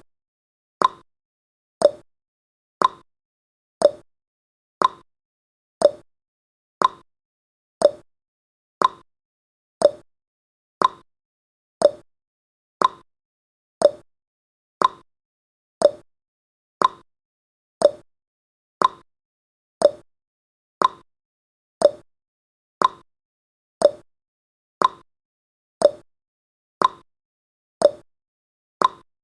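Clock-tick sound effect of a countdown timer: a short, sharp tick once every second, evenly and without change.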